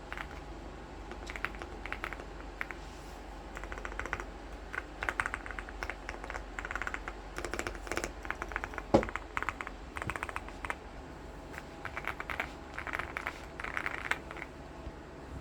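Typing on a mechanical keyboard: bursts of quick key clacks with short pauses between them, and one sharper, louder knock about nine seconds in.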